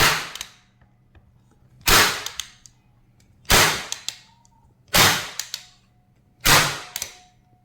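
Unitacker Light Force staple gun firing five times, about one and a half seconds apart, each a sharp snap with a short ring, driving cable staples over a cable line.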